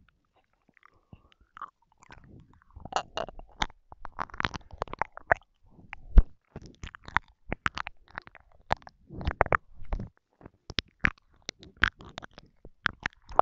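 Close-miked ASMR mouth sounds: wet, saliva-laden clicks and smacks of lips and tongue, coming irregularly, several a second, with a few short breathy patches between them.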